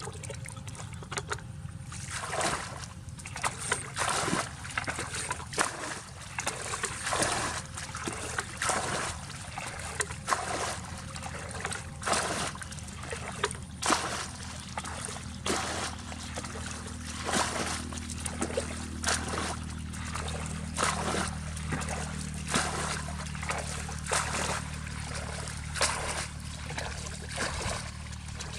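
Water splashing and dribbling in irregular bursts, with a steady low hum underneath.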